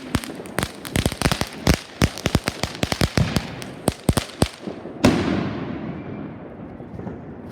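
Fireworks going off: a rapid, irregular string of sharp cracks and pops for about five seconds, then one louder bang followed by a hiss that fades away.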